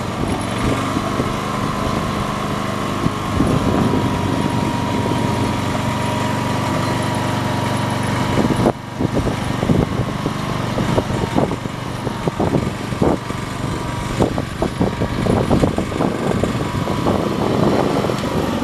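The small engine of a Thiermann compact auger machine running steadily, with a steady whine over it. In the second half, irregular clanks and knocks come as the machine's controls are worked.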